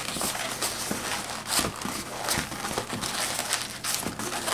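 Inflated latex 260 twisting balloons rubbing against each other and against the hands as they are bent and shaped, in a run of irregular short scrapes.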